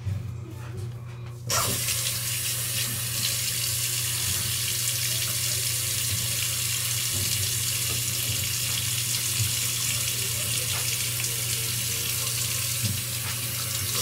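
Sink tap turned on and running in a steady stream, then shut off just before the end.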